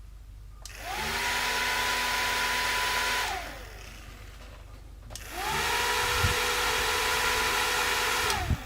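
Small DC motor of a homemade mini fan run twice, each time whining up to speed, running steadily for about two and a half seconds, then winding down. A click comes just before the second run, and short knocks near its end.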